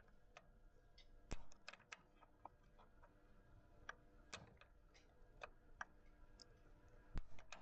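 Faint scattered clicks and taps of hand tools handling the roller parts while circlip pliers are set on the snap ring, with two louder knocks, one about a second and a half in and one near the end.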